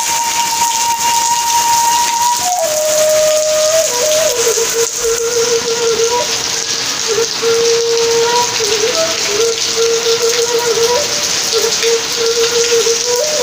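Steady rain falling on garden plants and wet paving, a loud even hiss. Over it runs a slow single-line melody of long held notes that shifts between a few pitches.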